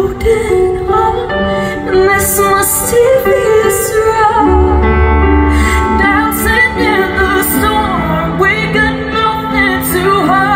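A woman sings a slow pop ballad live over backing music with held chords. A deep bass comes in about four and a half seconds in.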